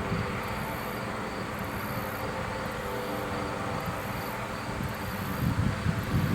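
Farm harvesting machinery running steadily with a low rumble, while insects chirp high-pitched in pulses about once a second.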